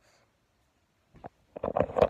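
Handling noise from a phone's microphone as it is picked up and moved: quiet at first, a single knock a little after a second in, then a quick run of loud, irregular bumps and rubbing.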